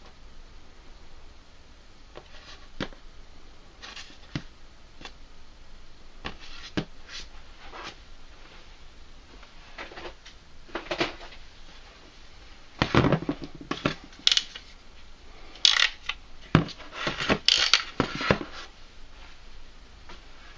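Unboxing handling noise: a cardboard box and its contents being moved and taken out, with scattered light clicks and rubs, then a louder run of knocks, clatter and scrapes for several seconds in the second half.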